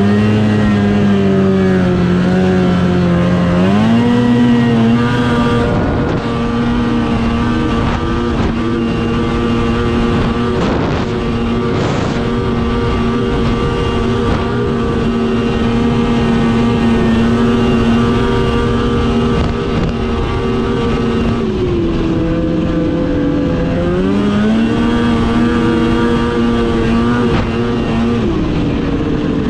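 Snowmobile engine running under throttle, its pitch climbing a few seconds in and holding steady, then dropping briefly about two-thirds of the way through, climbing again, and falling away near the end.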